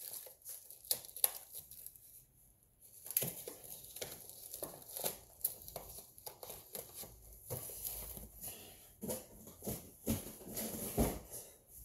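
Rummaging with a plastic-wrapped pack of Spam cans: the wrapping crinkles and rustles, with many scattered light knocks and clicks as the cans are handled.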